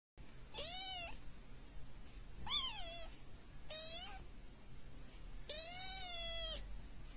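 Kitten meowing four times, high thin calls that rise and fall in pitch, the last one longer, about a second.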